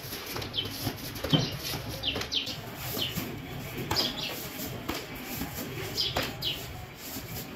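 Flat corrugated cardboard box blanks being flipped and dropped onto a stack, with papery swishes and sharp slaps, the loudest about a second and a half in. Birds chirp repeatedly with short high falling notes.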